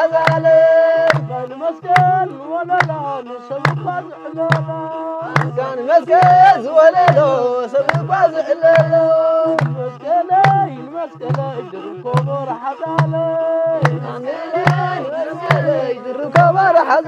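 Traditional Eritrean music: a wata (one-string bowed fiddle) plays a wavering melody of held notes over a steady kebero drum beat of about two beats a second, with sharp hits on the beat.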